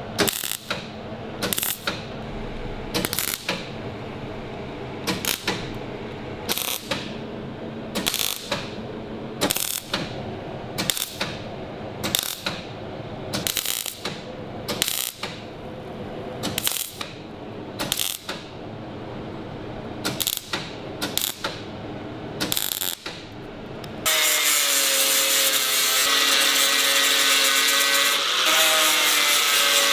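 MIG welder laying a row of short tack welds on a thin sheet-steel door patch: a brief crackling burst about once a second. About 24 seconds in, an angle grinder starts and grinds the welds down, running steadily with a slight drop in pitch under load.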